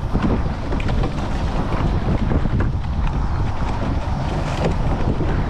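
Wind rumbling on the microphone aboard a rowing eight under way, with a few sharp clicks from oars turning in their oarlocks.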